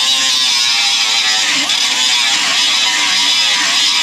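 Small disc grinder grinding down welds on a car's steel inner fender: a steady high whine with a hiss of metal being ground, the pitch dipping briefly a few times as the disc bites into the metal.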